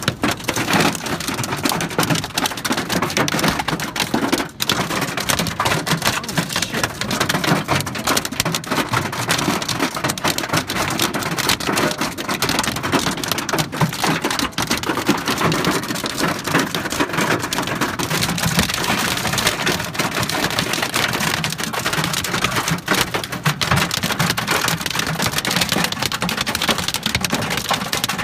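Hail and heavy rain pelting a car's roof and windscreen, heard from inside the cabin: a loud, dense, unbroken clatter of countless small hits.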